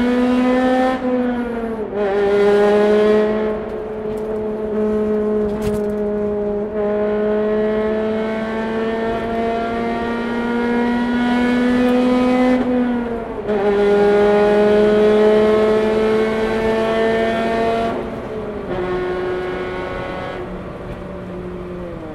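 Honda Civic Type R (FD2) four-cylinder VTEC engine and exhaust under steady acceleration: the engine note climbs slowly and drops back quickly at each upshift, three times.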